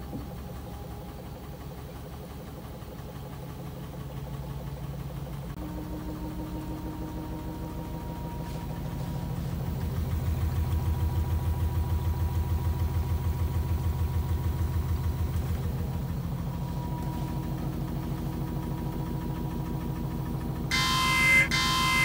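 LG Smart Drum top-loading washing machine running, a steady mechanical hum with a fast even pulse that shifts pitch about five seconds in and grows louder around ten seconds in. A short music sting near the end.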